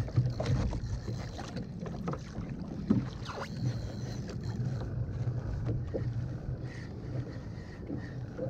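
Wind buffeting the microphone and water moving against a kayak hull, a steady low rumble with a few short knocks about three seconds in.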